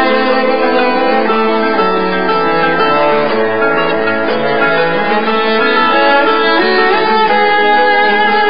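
Background music led by violin and other bowed strings, playing long held notes at a steady level.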